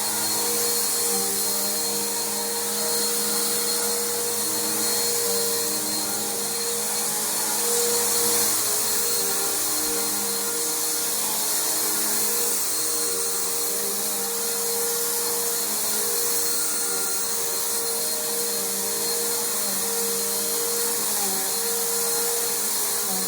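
Bissell PowerForce Bagged upright vacuum cleaner running steadily on carpet: a steady motor whine over rushing air, its pitch wavering slightly.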